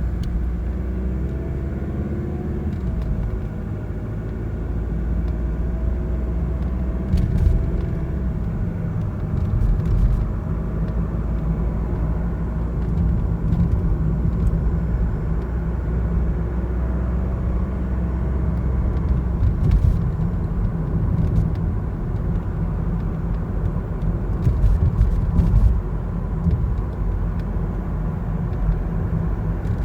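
Mazda CX-30 diesel under way: a steady low rumble of engine and road, with a faint whistle-like tone that rises in pitch over the first few seconds and returns briefly around 17 seconds in. This is the recorder-like whistle the owner hears continuously above 40 km/h. It has survived replacement of the turbocharger, the engine, the transmission and the exhaust parts, and its cause is unknown.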